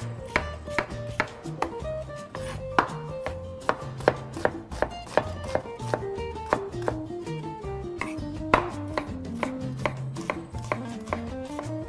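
Chef's knife chopping an onion on a wooden cutting board: a steady run of sharp knife strikes, about two to three a second, with background music under it.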